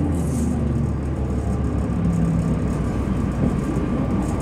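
Inside a 2005 New Flyer D40LF transit bus under way: its Cummins ISL diesel engine runs with a steady low drone over road noise.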